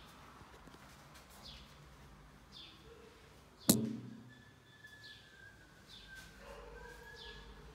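Small birds chirping, short downward-sliding calls about once a second over faint background noise. A single sharp knock about three and a half seconds in is the loudest sound.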